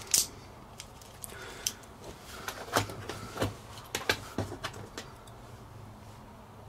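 Small plastic clicks and taps as the parts of a Kato N gauge Class 800 model motor car are clipped back together by hand: a sharp click just after the start, then scattered lighter clicks, most of them in the middle of the stretch.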